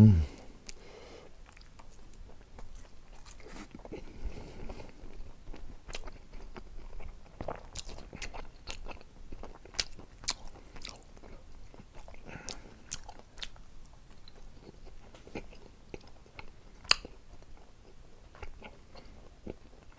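Close-up mouth sounds of a man chewing chewy gochujang-seasoned dried shredded squid, with many short sharp clicks scattered throughout. A low thump right at the start is the loudest sound.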